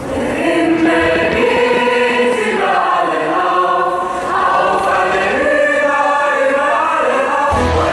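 Choral music: a choir singing sustained, gliding lines.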